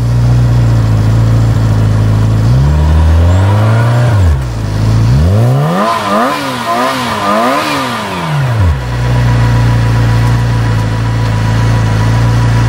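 Supercharged 1994 Porsche 968's 3.0-litre four-cylinder engine, warmed up, idling steadily and revved: one rise and fall about two and a half seconds in, then three quick blips in a row around the middle, before it settles back to a steady idle.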